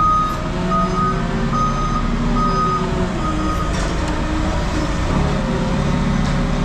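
Vehicle backup alarm beeping about once every 0.8 s, five beeps that stop about three and a half seconds in, over a diesel engine running steadily.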